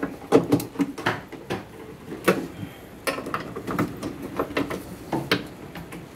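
Socket wrench on a long extension working an engine mount bolt: irregular metallic clicks and knocks, a few every second.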